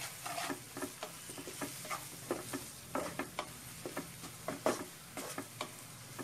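Wooden spatula stirring and scraping chopped onions and spice powders around a kadhai, with oil sizzling underneath: the masala being fried in oil. Short irregular scrapes come a couple of times a second.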